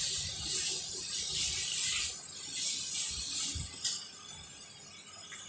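Steel spoon scraping and stirring onion and garlic paste as it fries in a stainless steel kadhai, in repeated strokes with the paste sizzling. A sharp click comes near four seconds in, after which the stirring stops and only a fainter sizzle is left.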